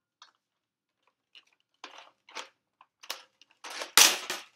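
Short rustling and knocking handling noises, close to the microphone, coming in quick bursts after a quiet first second and a half; the loudest is a thump about four seconds in.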